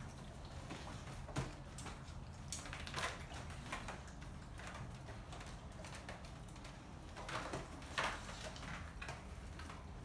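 American Bully dogs moving about beside a litter of puppies: scattered short rustles and snuffles, the plainest about a second and a half in, around three seconds and near eight seconds, over a low steady hum.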